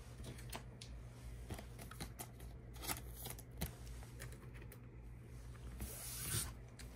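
Pokémon trading cards being handled: faint scattered clicks and rustles, with a short crinkly rustle about six seconds in.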